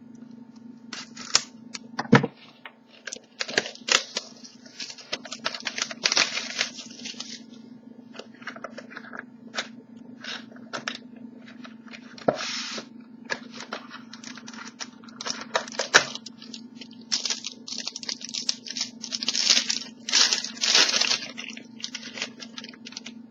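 Packaging being torn open and crinkled by hand, in irregular bursts of tearing and crackling, as a box of football trading cards is unwrapped. A steady low hum runs underneath.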